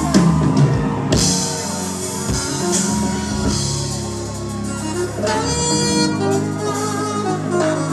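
Live band music: a saxophone solo over electric bass guitar, keyboard and drum kit.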